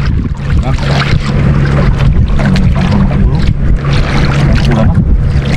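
Wind buffeting the microphone on a small outrigger boat at sea, with a low steady hum underneath and faint rustling.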